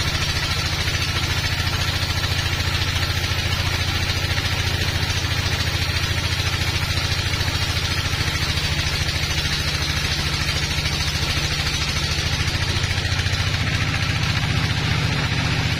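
Log band sawmill running steadily: a low engine drone with a fine even pulse, under a steady hiss from the band saw.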